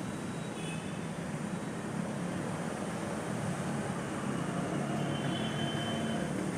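Steady low rumble of street traffic noise, with no distinct events and a faint thin high tone about five seconds in.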